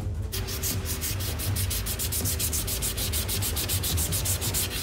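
Hand-sanding the flat of a hand-forged 80CrV2 high-carbon steel sword blade, quick even back-and-forth rubbing strokes, several a second, starting about a third of a second in.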